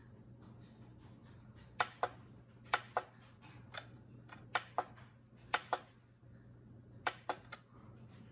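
Push buttons on a Starfrit electronic kitchen scale clicking under a finger, five pairs of sharp clicks roughly a second apart starting about two seconds in, as the unit button is pressed to cycle the scale through its units.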